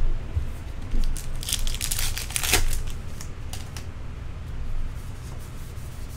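Wrapper of an Allen & Ginter trading-card pack crinkling and tearing as the pack is ripped open by hand, with the densest crackling about one and a half to two and a half seconds in, then cards being handled.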